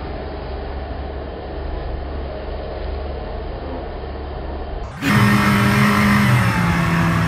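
Motorboat engine running at speed, a steady low drone with rushing water. About five seconds in it cuts abruptly to a louder steady hum with held low tones that step down in pitch.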